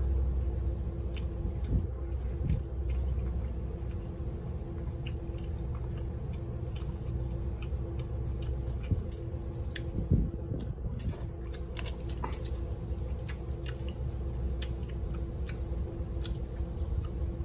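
A person chewing and biting food close to the microphone: wet, squishy mouth sounds with small, sharp clicks, over a steady low hum.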